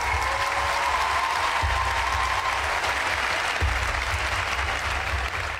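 Studio audience applauding steadily, with a low pulsing rumble underneath.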